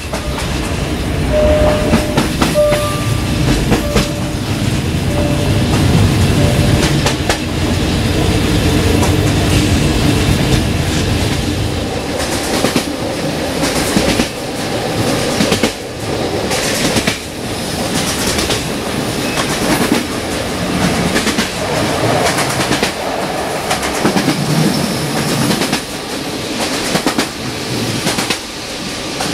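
Bogies of a double-decker passenger coach rolling at speed over jointed track: a steady rumble of wheels on rail, broken by irregular sharp clicks as the wheels cross rail joints.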